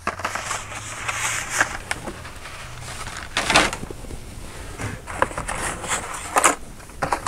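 Hot Wheels blister-card packages being handled and shuffled by hand, their card and plastic rustling, with several light clacks as packs knock together, the loudest about halfway and near the end.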